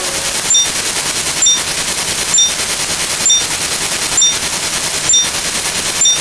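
Synthesized sound effect: a steady, dense crackling noise with a short, high click-beep about once a second.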